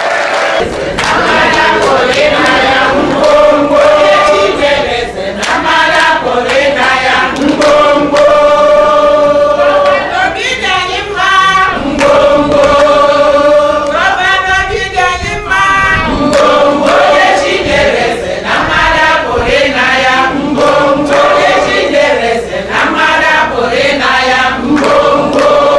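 A group of Igbo women singing together in chorus, with long held notes in repeated phrases.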